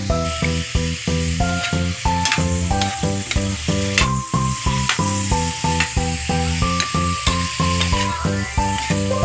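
Cubed pork sizzling in an oiled pan as it is stirred with a spatula, with a few sharp clicks from the spatula on the pan, under louder background music with a steady beat of short notes.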